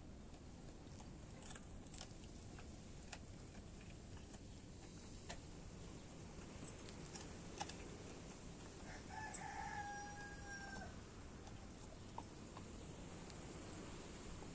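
A single long animal call, held on one pitch for about two seconds and dropping at the end, comes about nine seconds in, over faint steady background noise with a few small ticks.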